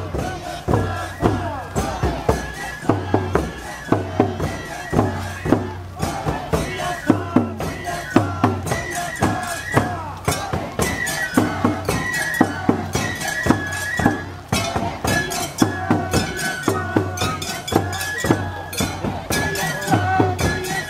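Japanese festival procession music: drums and clanging percussion struck in a quick, even rhythm with many sharp hits, and a high melody stepping over them. It cuts off abruptly at the end.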